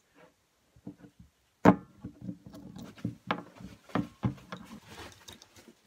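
Small metal parts of a djembe rope-tuning tool being handled and fitted together: a sharp knock a little under two seconds in, then a run of lighter clicks and taps.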